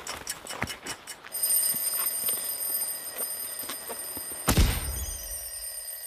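A clock ticking quickly, then about a second in an alarm clock starts ringing steadily. About four and a half seconds in, a loud boom hits over the ringing.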